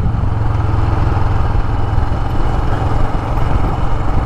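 Royal Enfield Himalayan's single-cylinder engine running steadily while the motorcycle is ridden along.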